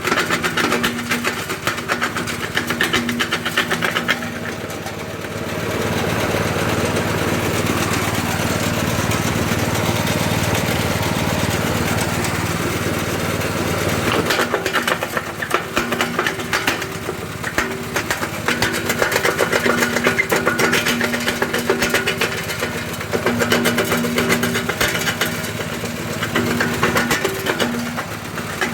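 Homemade scrap-built stone crusher running: a steady engine-like drive hum under dense rattling and cracking as stones are broken. From about 6 to 14 seconds in, the noise turns into a smoother, denser grinding, then the rattling returns.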